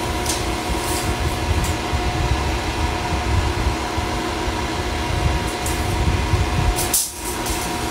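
Steady drone of running shop machinery, with several constant hum tones over a low rumble. About seven seconds in it dips briefly, with a short metallic clatter.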